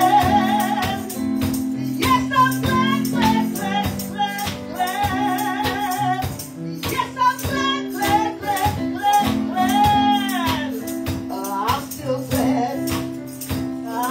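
A woman sings a gospel song into a handheld microphone, amplified. Underneath her are held chords and percussion ticking on a steady beat.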